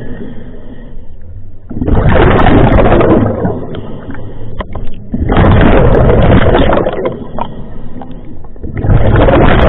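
Scuba diver's exhaled bubbles rushing out of the regulator three times, about every three and a half seconds, with quieter stretches between breaths.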